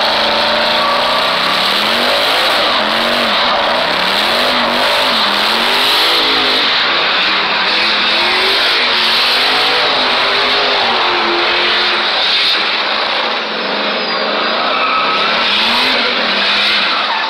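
Chevrolet Silverado pickup doing a smoky burnout donut: its rear tires squeal continuously over the engine, which revs up and down with the throttle.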